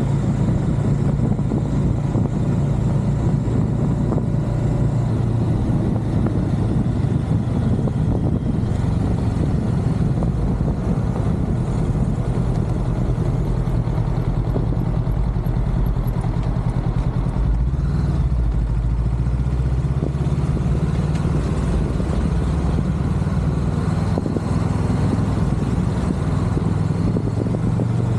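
Motorcycle engine running steadily while riding along a street. The engine note drops lower about two-thirds of the way through.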